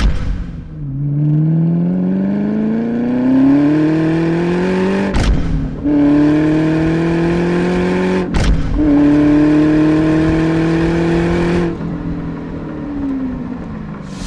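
Ford Mustang SVT Cobra's V8 accelerating hard through the gears: the engine pitch climbs steadily, drops sharply at upshifts about five and eight seconds in, then climbs again until the throttle is lifted near the end and the revs fall away.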